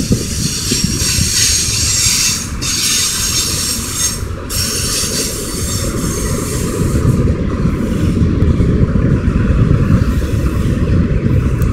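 Kansas City Southern de México freight train of covered hoppers and tank cars rolling past, its steel wheels rumbling on the rails. A high squeal from the wheels is strongest in the first half and fades after about seven seconds.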